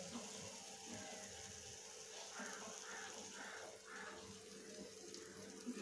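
Faint sizzling of banana paniyaram frying in shallow oil in a metal pan, with a steady low hum beneath; the hiss thins out after about two seconds. A sharp knock at the very end.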